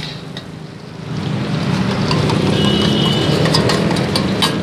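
Metal spatula scraping and clinking in a wok as chopped garlic fries in oil, with a few sharp clinks near the end as beaten egg is poured in from a steel bowl. A steady low hum runs underneath.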